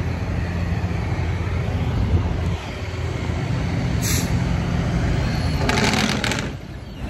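Semi truck's diesel engine idling with a steady low rumble, broken by hisses of compressed air from the air brakes: a short one about four seconds in and a longer one near the end, after which the engine sound drops away.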